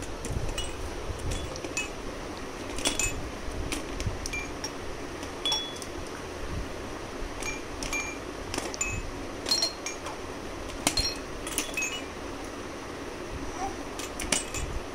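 Roly-poly tumbler toy chiming as it is rocked and handled: scattered, irregular light tinkling notes, some with a click.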